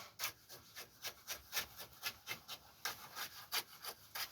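A hand tool scraping and rubbing in concrete in quick, uneven rasping strokes, about three a second, as the concrete is worked into the hole.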